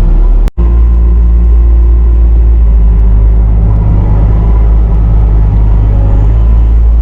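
Bobcat T650 compact track loader's diesel engine running steadily under throttle, a loud low drone with a brief break about half a second in.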